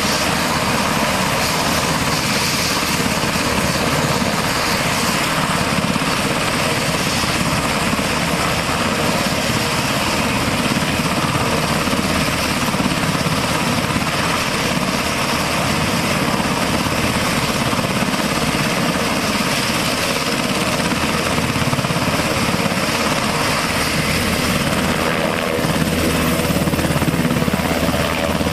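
UH-60 Black Hawk helicopter running on the ground, its twin turboshaft engines and rotors turning at a steady pitch. The sound grows a little louder near the end as the helicopter lifts off.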